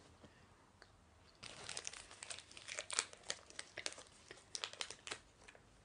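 A plastic candy bar wrapper being crinkled and folded by hand: a crackly rustle that starts about a second and a half in and stops shortly before the end.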